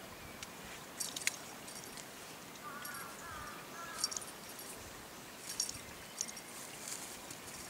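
A small bell jingling in a few brief, high tinkling bursts, over a steady background hiss.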